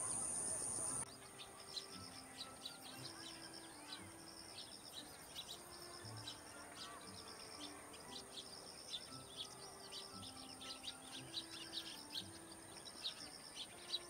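Eurasian tree sparrows chirping: many short, quick chirps repeated throughout, over a thin steady high tone. A louder high hiss drops away about a second in.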